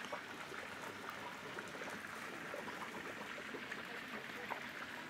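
Steady water-like rushing noise, with a few faint ticks and faint voices in the background.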